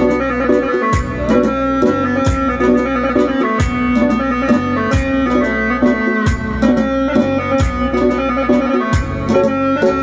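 Amplified electronic keyboard playing an instrumental passage over a programmed drum-and-bass beat, a deep thump about every 1.3 seconds.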